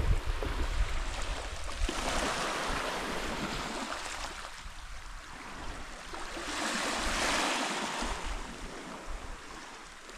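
Small waves of a calm sea washing onto the shore: a hiss that swells about two seconds in, eases off, swells again around seven seconds in, then fades.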